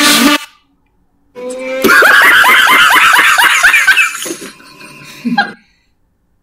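Sound-effect clip of a person laughing: a quick run of repeated 'ha-ha' pulses that trails off after about four seconds. Just before it, the tail of the previous clip cuts off abruptly.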